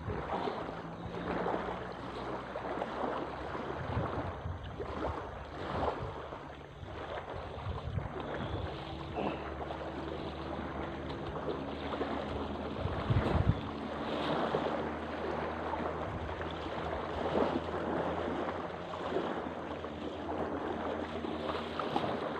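Lake water lapping against a pebble shore and splashing as swimmers wade through the shallows, with wind on the microphone. A faint steady low hum runs underneath, a little stronger from about eight seconds in.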